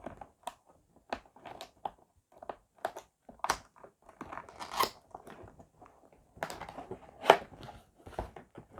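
Cardboard box being opened by hand: irregular crackles, scrapes and taps of the flaps and packaging, with a louder knock about seven seconds in.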